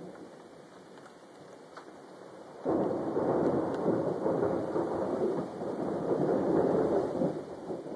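Thunder after a nearby lightning strike: a sudden loud rumble breaks in about a third of the way in, rolls on for about five seconds and eases off near the end. Faint rain is heard before it.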